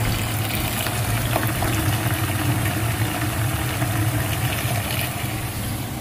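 Gas-fired Burnham steam boiler running with a steady low hum, still firing while its water is drained down to test that the low-water cutoff shuts the burner off.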